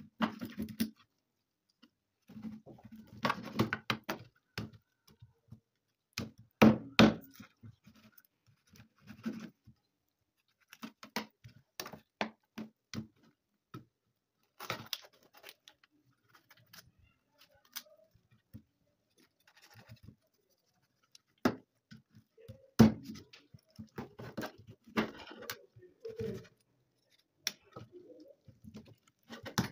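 A kitchen knife chopping and cutting a raw free-range chicken into pieces on a cutting board: irregular sharp knocks of the blade hitting the board, with quieter cutting and scraping sounds between them.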